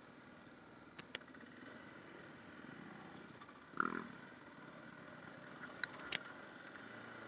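KTM 500 EXC single-cylinder four-stroke dirt bike engine running while riding trail, heard muffled, with a few sharp clicks and one louder knock about four seconds in.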